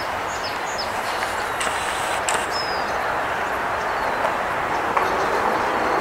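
Steady rushing outdoor background noise, with faint short high bird chirps a few times, mostly in the first second and near the middle.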